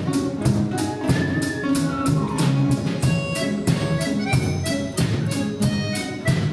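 Orchestra of Russian folk instruments, domras and balalaikas with drums, playing a folk song arrangement: sharp plucked chords on a steady beat of about three strokes a second under a sustained melody.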